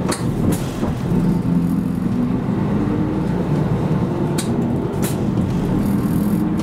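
Inside a city bus on the move: its engine runs steadily, with a few sharp rattles about a second apart near the start and again past the middle, and a short hiss near the end.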